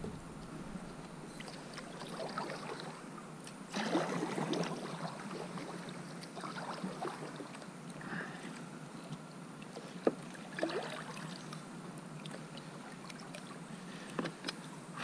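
Kayak being paddled along: the paddle blades dipping and pulling through the water in uneven strokes about every two seconds, heard as swishes of water, with a couple of sharp knocks.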